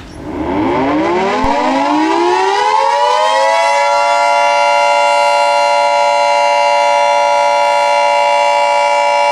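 Civil defense siren winding up, its pitch rising over about three seconds, then holding a steady, loud tone.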